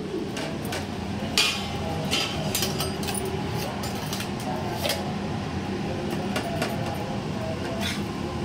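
Faber kitchen chimney (range hood) fan running with a steady hum, while stainless steel pots, plates and lids clink and knock against each other several times.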